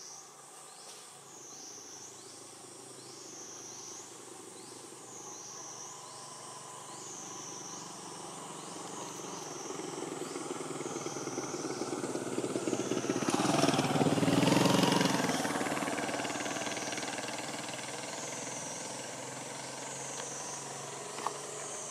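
A motor vehicle passes by, growing louder to a peak about two-thirds of the way through and then fading away. Under it a high-pitched insect call repeats about once a second.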